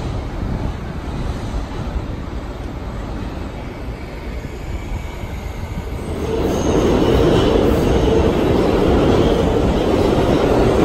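New York City subway train running on the tracks: a steady low rumble, then, about six seconds in, the louder, denser rail noise of a train passing close by.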